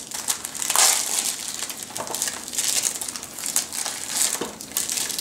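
Clear plastic shrink wrap being peeled and pulled off a Blu-ray case, crinkling in irregular bursts.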